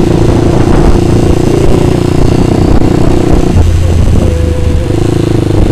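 Kawasaki Ninja 250 motorcycle engine running steadily while riding, its note changing briefly about three and a half seconds in before settling back.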